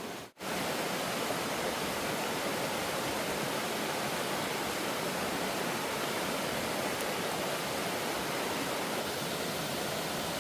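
Steady rushing of a waterfall, an even roar of falling water without letup, broken only by a momentary dropout just after the start.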